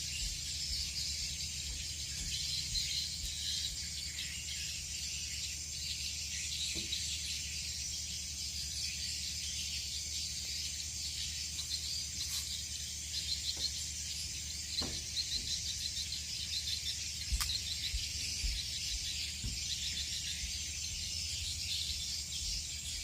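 Insects chirring steadily in a high, pulsing drone, with a few faint clicks and knocks.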